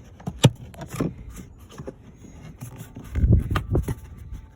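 Plastic car interior trim being pried and handled with a plastic trim tool: a scatter of sharp clicks and knocks, with a cluster of louder knocks and thuds about three seconds in.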